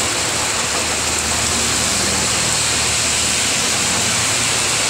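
Heavy rain pouring down on a vehicle, heard from inside it as a loud, steady hiss of water on the roof and windows.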